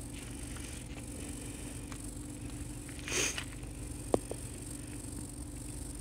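A steady low hum runs throughout. About three seconds in there is a brief hiss, and about a second later a single sharp click.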